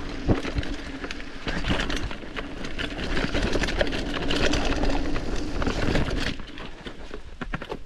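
Mountain bike riding down a muddy, slippery trail: tyres running through mud while the bike rattles and knocks over the rough ground, with a sharp knock early on. It eases off after about six seconds.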